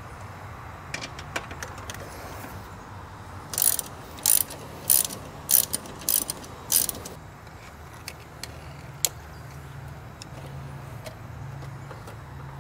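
Ratchet wrench driving a 12 mm socket on an extension, backing out a bolt that holds the air intake box. A few loose clicks come first, then six quick runs of ratcheting clicks a little over half a second apart.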